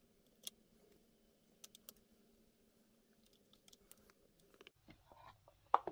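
Light, scattered clicks of fishing jigs with metal hooks being set into a clear plastic tackle box compartment, over a faint steady hum. A sharper click comes near the end.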